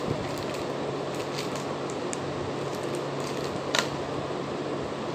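Small plastic accessory bag and packaging being handled, with light crinkles and scattered clicks, one sharper click about four seconds in, over a steady fan hum.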